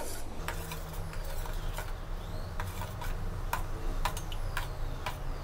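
A stainless steel spoon stirs a chili and roasted-rice dipping sauce in a stainless steel mixing bowl, clicking and scraping against the bowl in light, irregular ticks.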